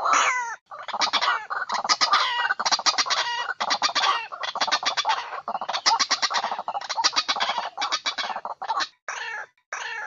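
White-breasted waterhen calling loudly in rapid runs of repeated harsh, clucking notes, a recorded ruak-ruak call used as a bird-trapping lure. The calls break off briefly about half a second in and end in a few separate notes near the end.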